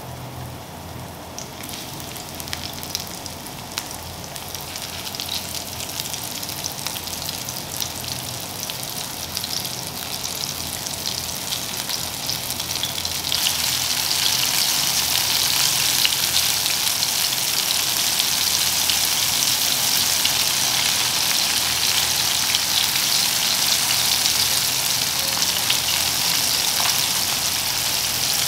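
Coated chicken mid-wings frying in shallow oil in a pan: a steady crackling sizzle that grows louder, with a jump in loudness about halfway through.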